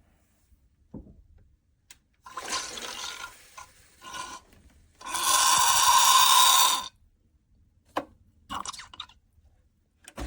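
Steam wand of a Neretva espresso machine, just heated, hissing in bursts: a moderate spurt about two seconds in, a loud blast of about two seconds near the middle, short spurts near the end, and a loud hiss starting again at the very end.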